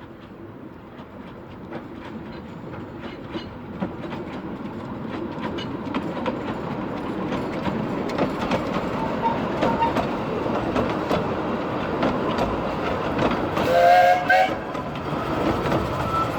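Narrow-gauge train hauled by a Hunslet Wren-type steam locomotive approaching and growing steadily louder, its wheels clicking over the rail joints. Near the end the locomotive gives one short whistle, the loudest sound.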